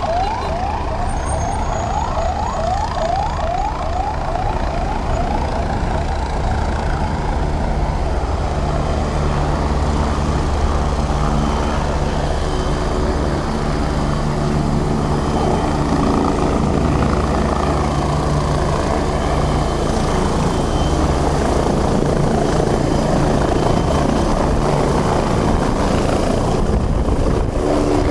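Emergency vehicle siren yelping, rapid rising sweeps about three a second for the first few seconds, over a steady rumble of city traffic and engines that runs on after the siren stops.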